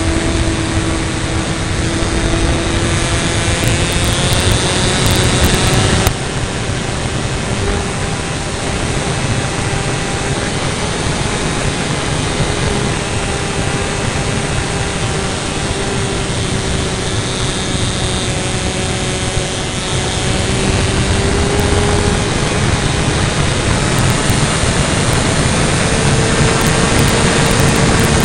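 RC model airplane's engine and propeller running in flight, heard close up from on board, over a dense rush of wind. The engine note drifts slowly higher, and steps up again near the end.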